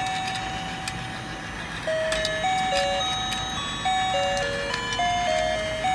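Battery-powered toy fishing game playing its electronic beeping tune, one simple note at a time, while its rotating plastic pond gives off light, irregular clicks.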